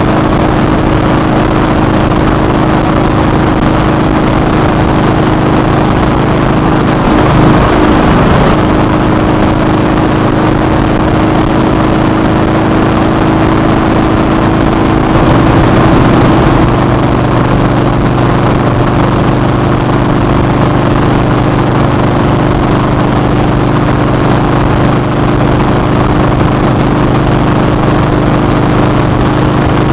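Motorcycle engine running steadily at highway cruising speed, with a constant rush of wind over the microphone. Twice, about a quarter and about half of the way through, the sound swells briefly and the engine note bends in pitch.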